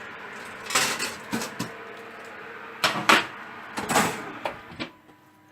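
Baking tray and oven handled while onion rings are taken out of the oven: a series of sharp metal knocks and clatters, the loudest about three seconds in. A faint steady hum follows near the end.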